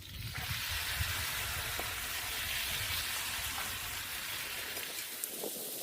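Cut-up chicken breast sizzling in olive oil on a hot Blackstone flat-top griddle: a steady frying hiss that starts suddenly just as the meat goes down.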